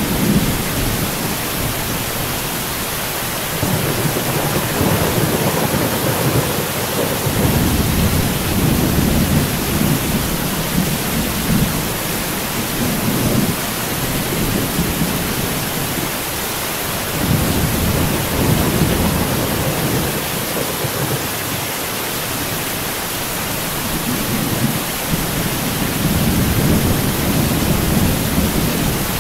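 Heavy rain falling in a steady hiss, with low rolling thunder that swells and fades several times, each rumble lasting a few seconds.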